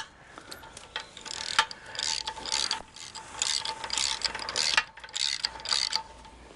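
Hand ratchet wrench clicking in short repeated strokes, about two a second, as the nut on a wire rope clamp is tightened onto a steel cable.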